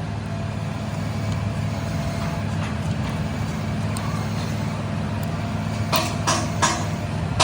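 A steady, low mechanical hum from a running engine or machine, with a few sharp clinks about six seconds in.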